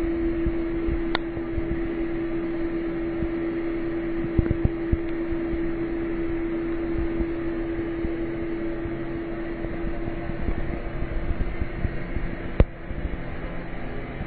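A steady mechanical hum with one constant tone, and a sharp click about a second in and another near the end.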